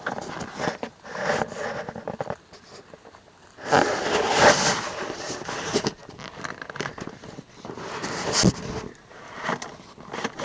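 Scraping and rustling of an inflatable boat's PVC hull and floor pieces being worked into place by hand, with a longer, louder rubbing rush about four seconds in and a sharp knock near the end.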